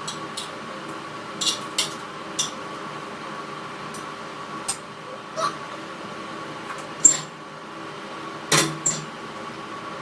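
Short, sharp sniffs scattered over a steady background hum, as someone tries to work up a sneeze. A sharp knock comes about seven seconds in, and a louder, longer burst near the end.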